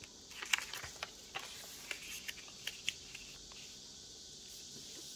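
Sheet of 15 cm origami paper being folded and its creases pressed flat by hand, in a door fold. A few faint crisp ticks and rustles come in the first three seconds, then only a faint steady hiss.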